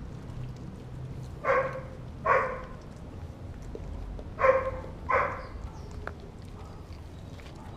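A dog barking: two pairs of short barks, the barks in each pair under a second apart and about three seconds between the pairs.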